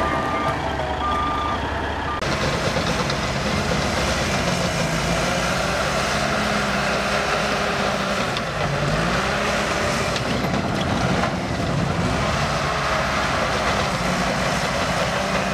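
Heavy diesel engine of a Caterpillar bulldozer running under load as it pushes a pile of sand, its engine note dipping and recovering about eight seconds in. A reversing alarm beeps near the start.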